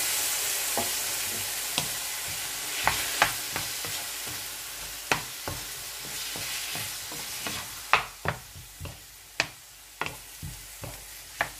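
Raw chicken pieces frying with garlic, ginger and red onion in a nonstick frying pan: a loud sizzle that slowly dies down. A wooden spatula stirs and knocks against the pan in sharp clicks, more often in the second half.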